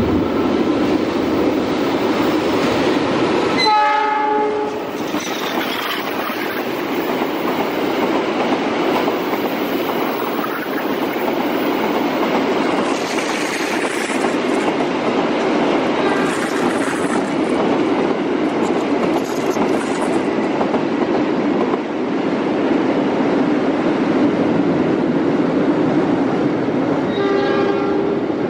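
Freight train of Pertamina fuel tank wagons rolling past close by: a steady rumble and clatter of wheels on rail throughout. A train horn sounds for about a second at about four seconds in, and again near the end.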